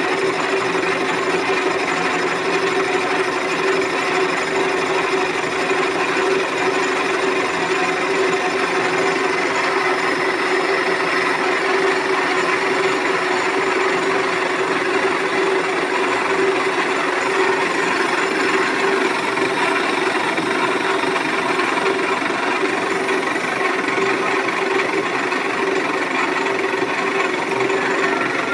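Metal lathe running steadily while turning a metal disc held in its chuck: a continuous machine din with a steady, even hum-like tone throughout.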